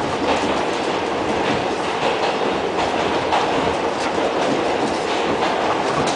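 R68 subway car running on the rails, heard from inside the car: a steady rumble of wheels and running gear with irregular clicks as the wheels pass over rail joints.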